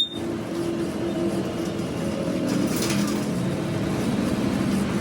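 A steady, low mechanical drone of a running machine, holding an even level throughout.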